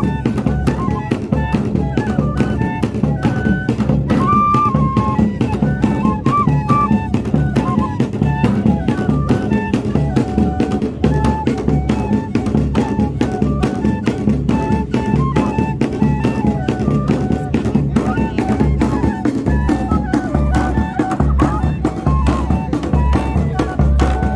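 Banda de pífanos playing: cane fifes carry a quick, high melody of short notes over steady bass drum and snare percussion in a fast, driving rhythm.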